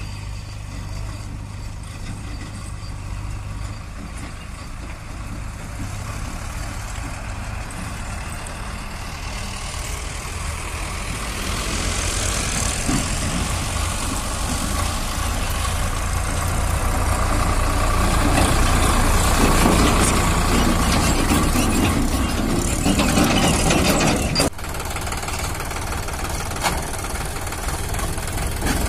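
Sonalika DI 47 RX tractor's 50 HP three-cylinder diesel engine running as the tractor approaches, growing louder, then dropping suddenly about 24 seconds in to a steady idle as it stops.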